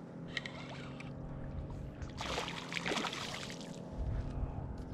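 Water splashing for about a second and a half, starting about two seconds in, over a steady low hum; a low rumble follows near the end.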